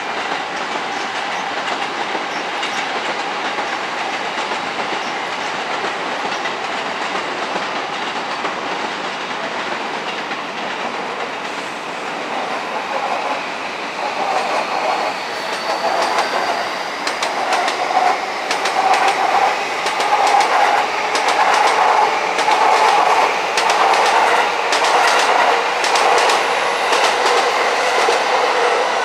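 E257 series Odoriko electric train pulling out, its wheels clattering over rail joints and points. The clatter grows louder and busier about halfway through, with a brief rising whine in the middle.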